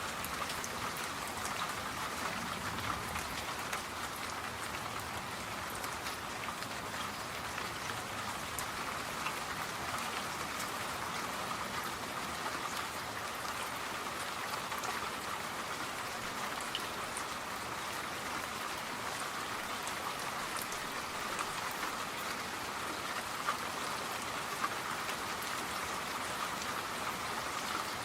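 Steady rain falling, a constant patter with scattered sharper drop ticks.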